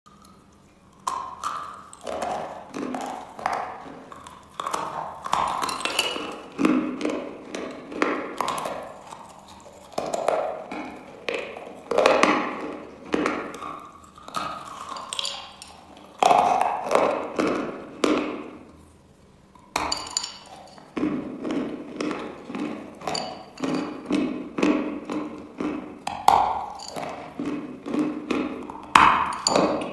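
Dry chalk chunks being bitten and chewed: a sharp crunching snap with each bite, followed by a run of rapid, quieter grinding crunches, repeating every second or two.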